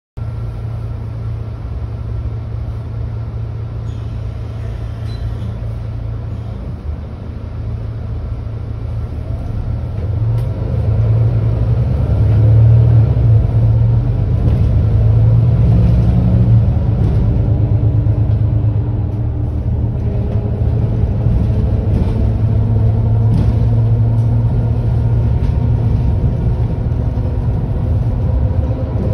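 Diesel engine of a Mercedes-Benz Citaro C2 G articulated city bus idling at a standstill, a steady low running that grows louder about ten seconds in and stays louder.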